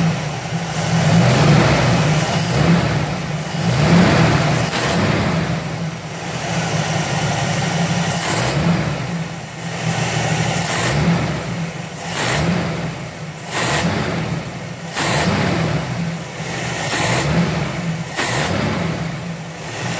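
Carbureted 1989 Jeep Wrangler's 4.2-litre straight-six running, heard from just above the open two-barrel carburetor with the air cleaner off. The throttle is blipped briefly every second or two, giving short rises in engine and intake noise over a steady hum.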